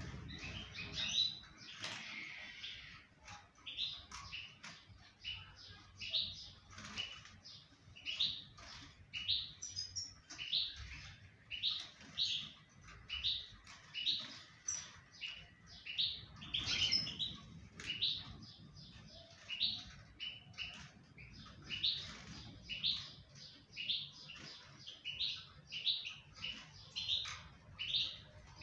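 Moroccan goldfinch calling: short high chirps repeated about once a second.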